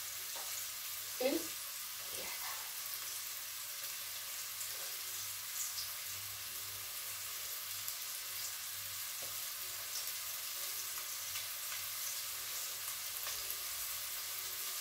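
Floured pork rib pieces frying in hot oil to brown and seal them: a steady sizzle with light crackling.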